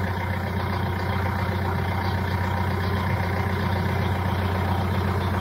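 Tractor engine idling steadily, a constant low hum that holds the same speed throughout.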